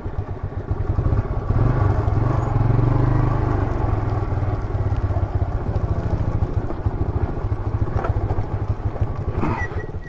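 Motorcycle engine running at low revs with a steady rapid pulse, heard from the rider's seat while the bike rolls down a rough dirt track. The engine grows louder for about two seconds, starting about a second and a half in, then settles back.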